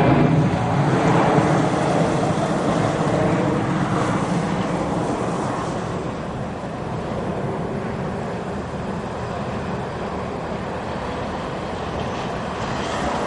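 Air France Airbus A380's four jet engines running at climb power as it climbs away after takeoff: a steady jet roar with faint tones in it, slowly fading.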